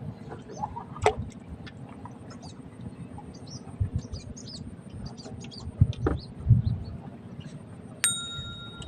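Small birds chirping in short, repeated high calls over a steady low rumble, with a few knocks and thumps. A short steady high tone sounds near the end.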